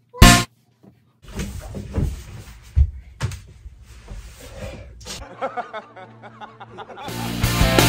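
A loud bang, like a door or cupboard slamming, then a few seconds of rustling and clattering as things are moved about. Music fades in near the end.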